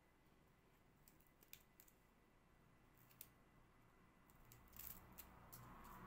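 Near silence with a few faint clicks and ticks as rubber bands are pulled off a silicone mould.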